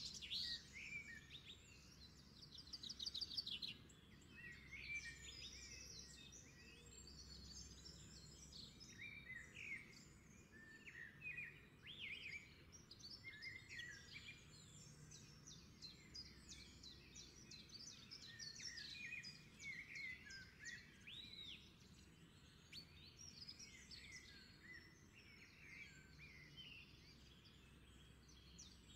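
Faint birdsong: many short chirps and whistled calls, scattered irregularly throughout. A rapid rattling sound in the first three seconds or so is the loudest part.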